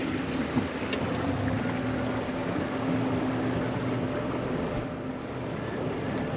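Boat motor running steadily at an even pitch as the boat cruises, with a hiss of water and wind over it.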